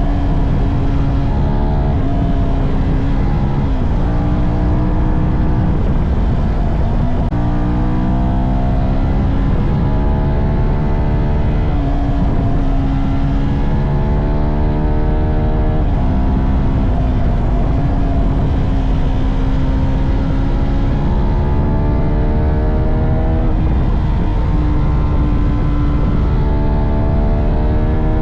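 CF Moto 300NK motorcycle's stock single-cylinder engine and exhaust pulling hard. The pitch climbs, then drops at each gear change, repeatedly, with a steadier stretch in between.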